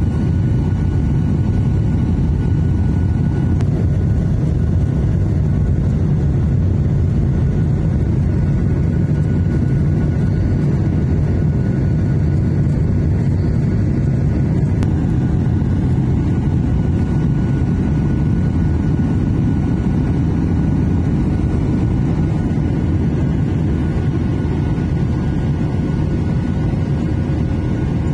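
Inside the cabin of a Boeing 737-800 climbing after takeoff: the steady low rumble of its CFM56-7B jet engines and rushing air through the fuselage, with a faint thin whine above it. The noise eases slightly near the end.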